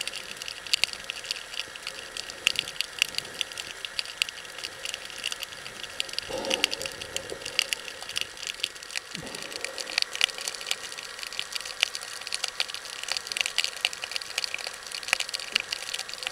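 Underwater sound: a dense, irregular crackle of sharp clicks, with two brief low swooshes about six and nine seconds in.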